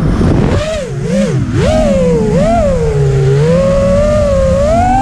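FPV racing quadcopter's brushless motors whining as the drone flies. The pitch swings up and down several times with the throttle, then climbs steadily near the end.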